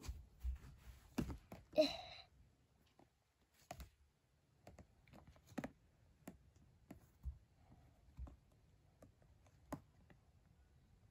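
Quiet, scattered clicks and taps of plastic body wash tubes and spray bottles being handled, with a short vocal sound about two seconds in.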